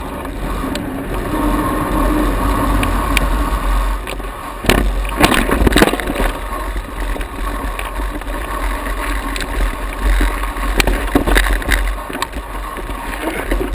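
Mountain bike riding over a rough rocky trail, with steady wind rumble on the microphone and the bike rattling and knocking over the ground, the hardest knocks about five to six seconds in.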